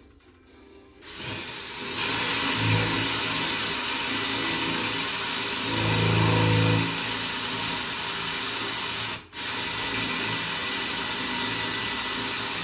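Cordless drill boring into the wall, starting about a second in. It runs steadily, stops briefly about nine seconds in, then runs again.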